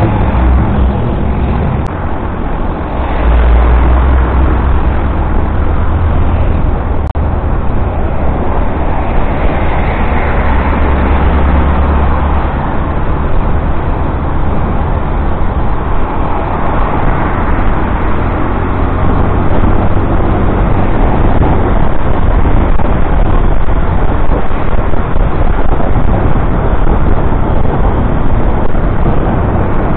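Steady rush of wind and road noise from a motorcycle in motion. Heavy low wind rumble on the microphone, strongest for several seconds starting about three seconds in.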